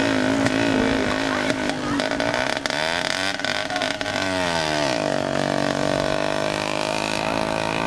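Several small two-stroke Puch Maxi moped engines racing, revving hard. Their pitch swings down and back up through the middle, then holds steady and high near the end.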